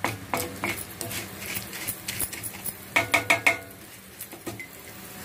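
Wooden spatula scraping and knocking on an iron griddle, turning dry-roasting chana dal, rice and urad dal, with a quick cluster of ringing clinks about three seconds in.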